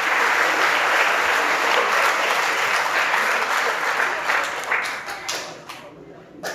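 Audience applauding, a dense patter of many hands clapping that thins out after about four seconds into a few scattered claps and dies away.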